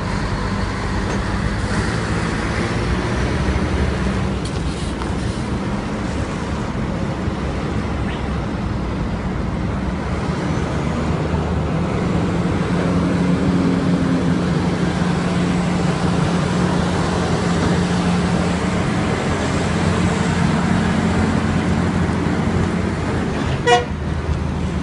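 Diesel engines of tanker semi-trucks running as they pass close by: a steady low drone throughout. A brief horn toot sounds about a second before the end.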